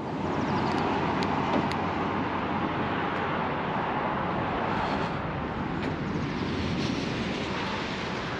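Steady hum of motorway traffic and running vehicles, with two faint ticks about a second in.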